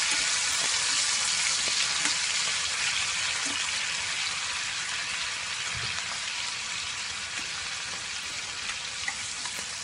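Chopped tomatoes sizzling in hot sesame oil in a stainless steel pan over a medium flame, a steady frying hiss that slowly fades.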